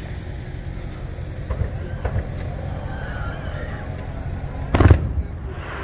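A single sharp firework bang about five seconds in, over a steady low rumble.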